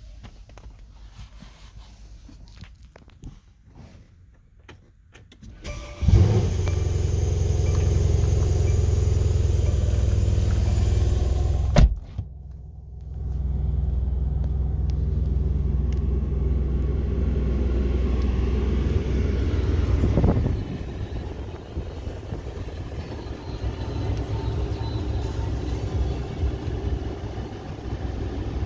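Mercedes-AMG C63 S twin-turbo V8 started from inside the cabin: a sudden loud burst about six seconds in, then a steady deep idle. A sharp click and a short dip come near twelve seconds, then the idle picks up again and steps down to a quieter, lower idle about twenty seconds in.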